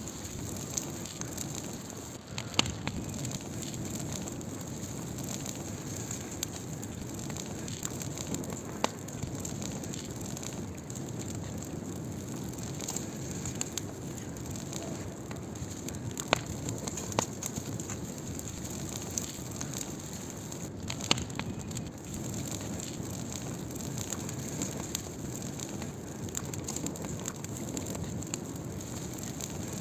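Wood fire burning with a steady hiss and scattered sharp crackles and pops, a few louder snaps standing out.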